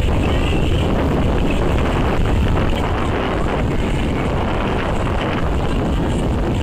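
Wind buffeting the camera microphone: a steady low rumble with a hiss above it.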